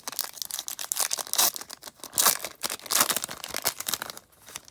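A Topps Stadium Club baseball card pack's wrapper being torn open and crinkled in the hands, a dense irregular crackling that dies away shortly before the end.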